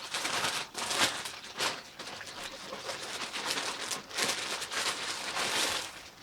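Cardboard packaging being handled and opened by hand: a run of rustling and scraping.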